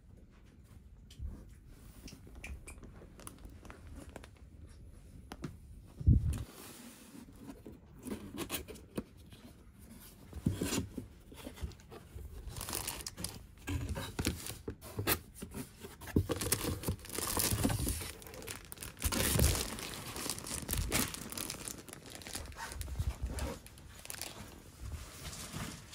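A cardboard gift box being opened by hand and plastic-wrapped items lifted out: cardboard flaps scraping and tearing, and clear plastic packaging crinkling, with a single thump about six seconds in.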